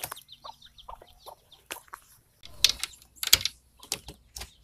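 Young chickens peeping and clucking softly, with several short sharp taps in the second half.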